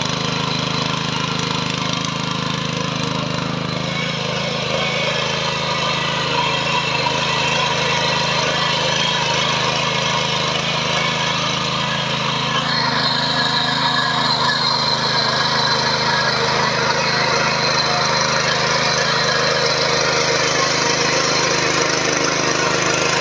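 Small engine of a Birla Agro power weeder running steadily under load while its rotary tines churn dry soil clods, getting a little louder about halfway through.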